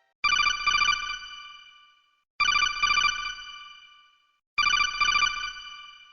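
Electronic telephone ringtone ringing three times, about two seconds apart. Each ring is a fast trilling tone in two quick pulses that then fades.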